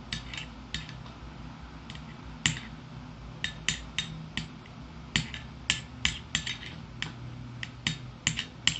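A small teaspoon clinking and tapping against a small plate while stirring a shampoo-and-salt slime mixture that is starting to turn sticky. The clinks come irregularly, a couple of dozen of them, some sharper than others.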